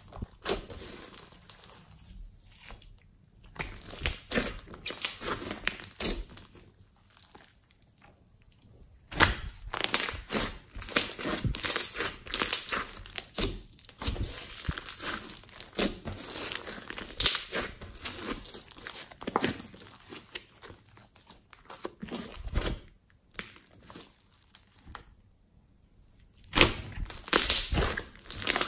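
Glossy slime mixed with small beads kneaded, squeezed and stretched by hand: irregular sticky crackling and popping, broken by a few short pauses.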